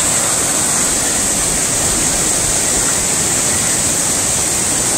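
Fast-flowing stream water rushing over rocks, a steady loud roar of running water.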